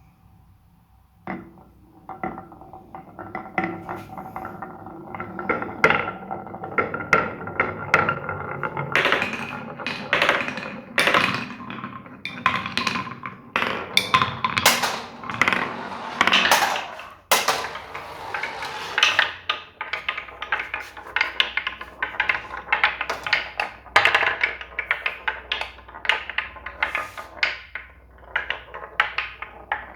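Many marbles rolling and clattering down plastic building-block marble-run tracks: a dense stream of clicks and knocks with a steady rolling hum underneath. It starts about a second in and thins out briefly in the middle.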